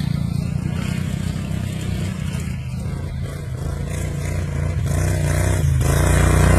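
Racing lawn mower engines running around the track, their pitch rising and falling as they rev. They get louder over the second half.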